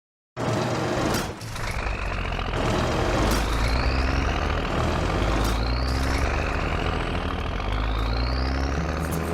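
Heavy vehicle engine running with a deep, steady rumble, starting after about half a second of silence, with a rising whine repeated about every two seconds and a few short sharp noises over it.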